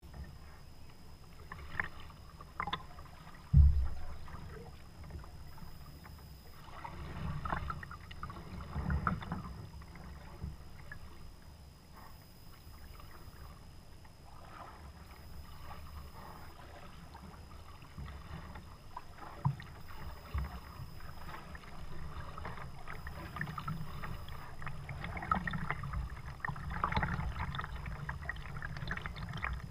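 Kayak paddling on calm water: paddle blades dipping and swishing, with water dripping and a few light knocks on the Perception Pescador 12's hull. A sharp thump comes about three and a half seconds in.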